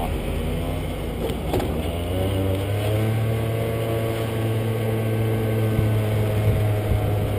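Motor scooter engine running while riding, its pitch easing down slightly over the first couple of seconds and then holding steady, over a hiss of road and wind noise. A brief click about one and a half seconds in.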